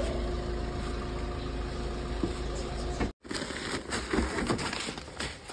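A car's engine idling, heard from the cabin as a low steady rumble while the door is opened. After an abrupt break about three seconds in, rustling and light bumps as a plastic-wrapped sack is lifted out of the car's boot.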